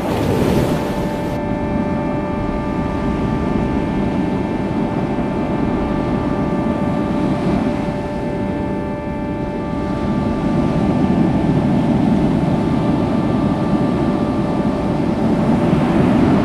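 Steady mechanical drone: a low rumble with several held humming tones above it, some of which drop out and return partway through.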